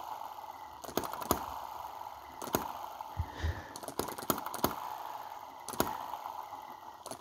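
Miniature single-cylinder four-stroke petrol model engine running slowly: a steady whirr with sharp clicks at an uneven pace, about one or two a second, some in close pairs. It is running with no valve spring fitted, the owner believes.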